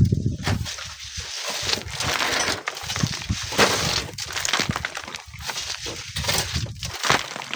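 Loose sand and stones sliding and falling down a dry sand cliff face, a gritty hiss broken by many irregular crackles and clatters of falling stones.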